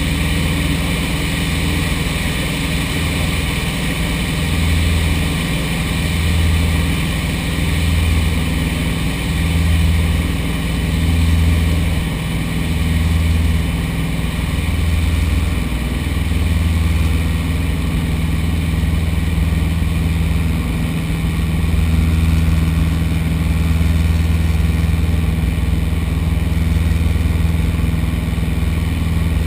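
Light aircraft's piston engine and propeller running steadily at cruise power, heard as a loud constant drone from on board, with a slow, even throb in the low hum.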